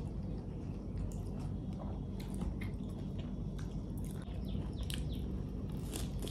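Eating by hand: small clicks and soft crinkles as a lettuce leaf is handled and a mouthful of rice is chewed, over a steady low hum.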